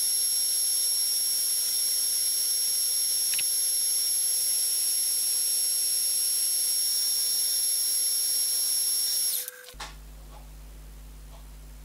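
Milling machine cutting a slot in a small metal part with a 4 mm end mill, heard sped up ten times: a steady high whine over a hiss. About nine and a half seconds in the whine sweeps down and cuts off as the spindle stops, leaving a low hum with faint ticks.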